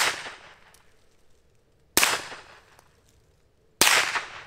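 Three shots from a Walther PPK/S .22 LR pistol firing high-velocity Aguila Super Maximum rounds, about two seconds apart, each trailing off quickly. The rounds are going supersonic, about 1,200 feet per second across the chronograph.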